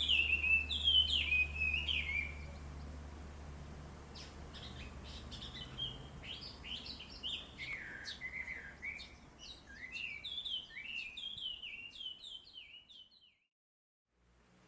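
Birds chirping and singing at dawn: loud, repeated falling whistled phrases for the first couple of seconds, then a busy mix of short chirps and sweeps from several birds. The sound cuts off suddenly near the end.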